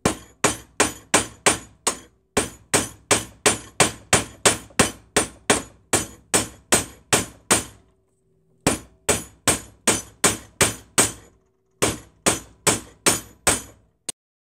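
Small ball-peen hammer striking a vintage Walworth Stillson pipe wrench, metal on metal: quick, ringing taps about two to three a second, in four runs with short pauses.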